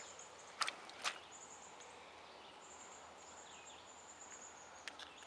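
High, thin insect buzz in long stretches over quiet creekside ambience, with two sharp clicks about a second in and another near the end.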